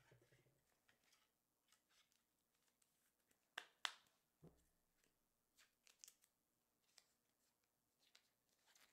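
Near silence with scattered faint clicks and ticks; two sharper clicks come about three and a half seconds in, followed by a soft thump.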